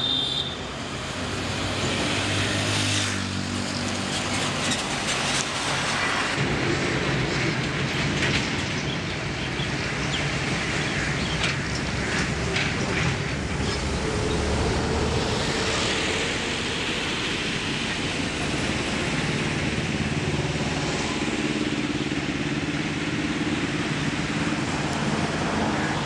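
Road traffic: motor vehicle engines running and passing, their notes shifting and overlapping over a steady din, with a few brief clicks about halfway through.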